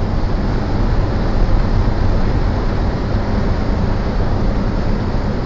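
Steady low rumble inside a car driving at highway speed: tyre, engine and wind noise.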